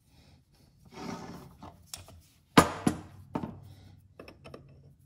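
Parts being handled as a brake booster pushrod is fitted onto the booster's threaded stud. There is a brief rustle, then a few sharp clicks and knocks, the loudest about halfway through, with smaller clicks near the end.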